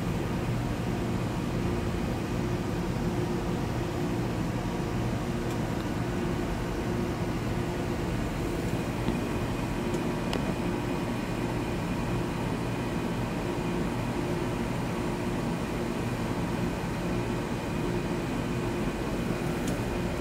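A steady, low mechanical drone that does not change, with a faint high steady tone joining about nine seconds in.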